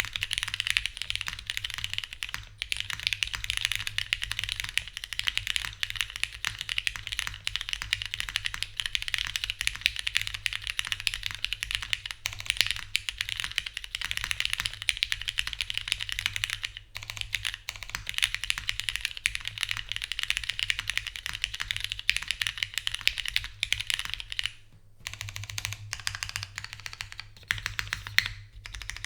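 Fast continuous typing on a custom mechanical keyboard with lubed, retooled Cherry MX Black linear switches in a 1 mm aluminium plate with no dampening foam, under GMK doubleshot keycaps: a dense run of keystroke clacks. The typing slows with brief pauses near the end.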